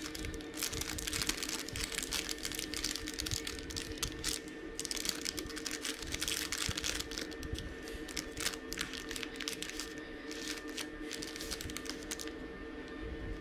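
Baking paper crinkling and rustling in many quick small crackles as soft baked bread rolls are pressed and torn apart by hand.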